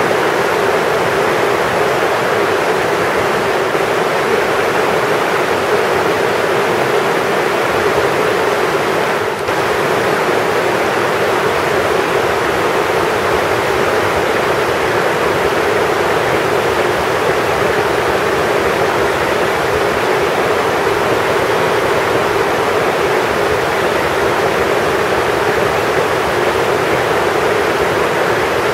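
River rapids: fast water churning white over rocks, giving a loud, steady rush.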